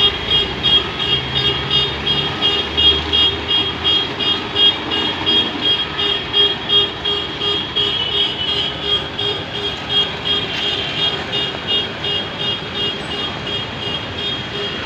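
Tata Signa tipper truck's diesel engine running as it manoeuvres at low speed, with a high electronic beeper sounding about twice a second over it.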